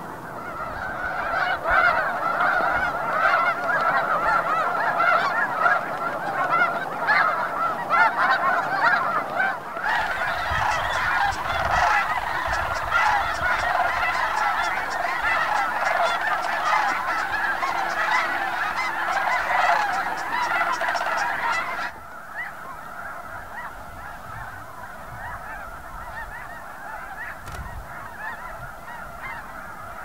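A large flock of snow geese calling, a dense continuous din of overlapping honks. It grows louder about a third of the way in and drops suddenly to a quieter, steadier chorus about two-thirds of the way through.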